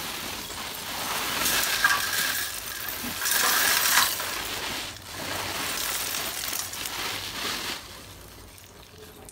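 Broken pieces of roasted multani mitti (fuller's earth clay) poured from a plastic bag into a steel sieve, clattering against the metal mesh and each other. The rattle is loudest in two spells, around two and four seconds in, and dies down near the end.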